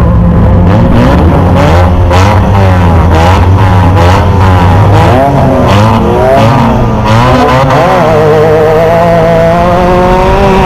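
Off-road race car engine running loud under racing load, its pitch rising and falling again and again as the throttle and revs change.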